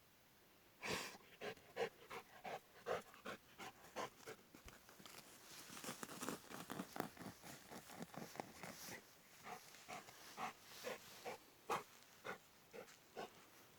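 A dog panting in short, uneven breaths, about two a second.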